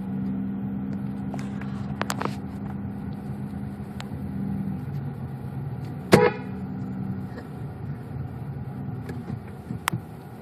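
Car driving with a steady drone, and a short car horn toot about six seconds in.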